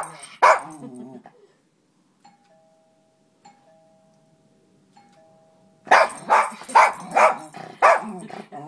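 A dog barks once, then a faint two-tone ding-dong doorbell chime sounds three times in a row. The dog answers with a run of about six loud barks.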